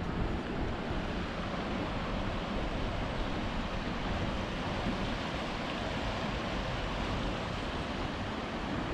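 Steady rushing of a brown river flowing fast through a wooded gorge, with a low wind rumble on the microphone.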